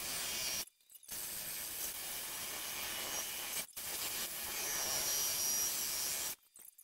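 Electric drill running a water-cooled 1.5-inch diamond-coated hole saw, grinding through aquarium glass with a steady, gritty hiss. The bit is dull, so the cut is slow. The sound drops out abruptly twice for a moment.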